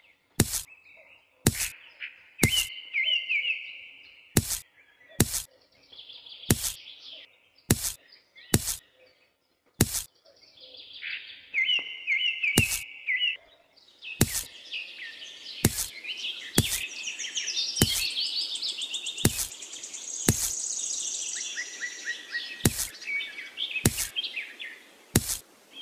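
Birds chirping and trilling, with sharp clicks about once a second at irregular spacing as small pebbles and beans are set down one at a time.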